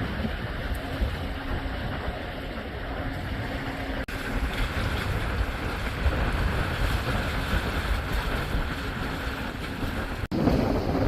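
Wind buffeting the microphone over the steady wash of the sea at a breakwater, broken by brief cuts about four seconds in and near the end.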